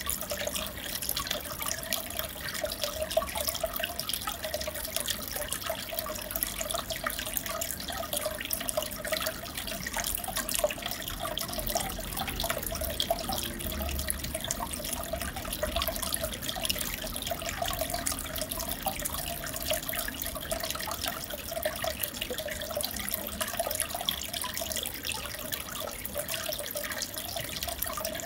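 Aquarium water bubbling and trickling steadily, with a dense fine crackle of small popping bubbles.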